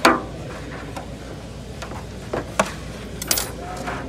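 Stitching cord drawn quickly through aircraft fabric with a short swish that falls in pitch, followed by a few light ticks and a brief rasp as the cord and needle are worked by hand, over a steady low hum.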